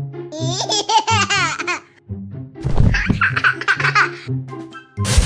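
Bouncy children's background music with a baby laughing over it twice, the first laugh high and wavering, the second starting about two and a half seconds in.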